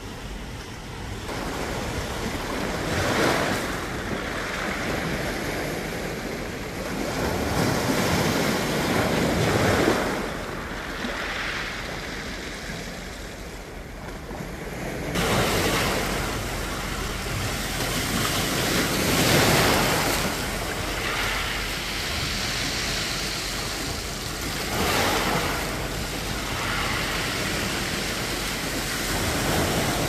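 Small sea waves washing in among shoreline rocks, the surf swelling and falling back every few seconds.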